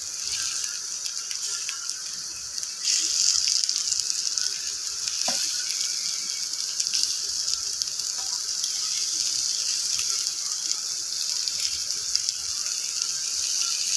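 Bread-and-egg omelette sizzling steadily in oil in a steel frying pan over a low flame, the sizzle growing louder about three seconds in. A slotted steel spatula scrapes and clicks against the pan as the omelette is cut into pieces.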